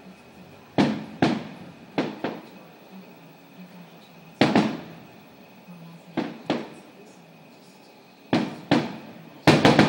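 Aerial firework shells bursting: about a dozen sharp booms, mostly in quick pairs, each trailing off over a fraction of a second.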